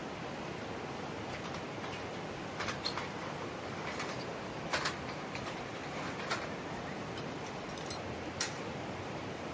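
Mountain stream flowing steadily, with a scattering of light clicks and knocks from gear being handled, about seven in all from a few seconds in to near the end.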